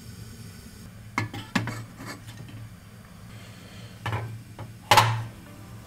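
Lead blocks being put into a steel melting pot by a gloved hand: a handful of separate metallic knocks and clanks, the loudest near the end.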